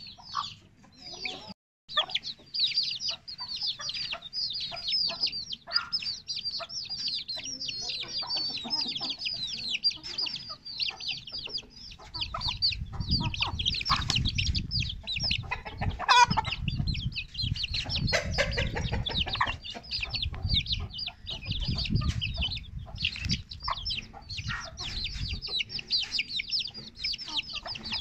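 A brood of Aseel chicks peeping constantly, a dense stream of short high calls that each fall in pitch. From about halfway through, a low rumble sits under the peeping.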